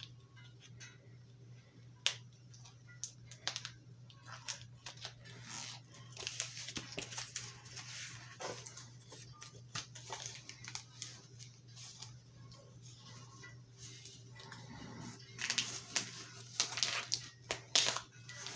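Cardboard mailer being handled and opened by hand: scattered clicks, scrapes, tearing and rustling of cardboard and plastic, busiest around the middle and again near the end as the bagged and boarded comic is pulled out. A steady low hum runs underneath.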